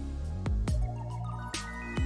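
Background music: electronic music over sustained tones, with deep kick-drum thumps twice about half a second in and once more at the end.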